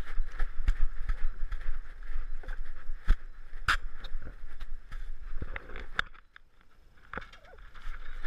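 A collar-mounted action camera on a moving dog: irregular knocks, clicks and rubbing against the collar and case over a steady rushing noise, which eases off for about a second late on.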